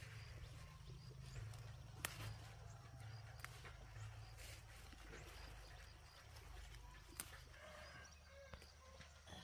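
Near silence: a faint low rumble with a few sharp, isolated clicks.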